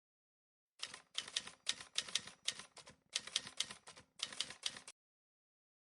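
Faint, rapid, irregular clicks like keystrokes, in three runs with short pauses between them.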